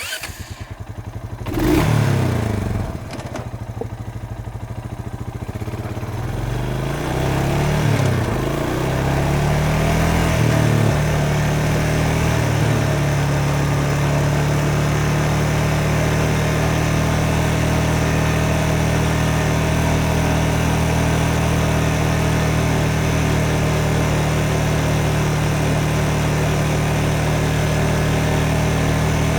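Motorcycle engine starting: the starter cranks, the engine catches with a quick rev about two seconds in and settles to an idle. It is then revved up and down several times, and from about twelve seconds in it runs at a steady, even pitch, as when riding at constant speed.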